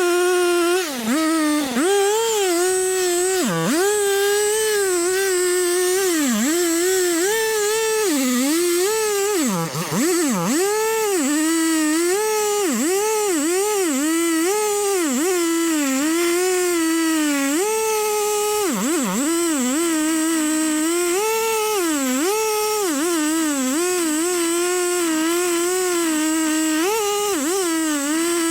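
Stihl chainsaw running at high revs while cutting into a large tree to fell it. The pitch keeps dropping sharply and climbing back as the chain bogs under load and recovers, with the deepest dips about ten seconds in and again near the middle.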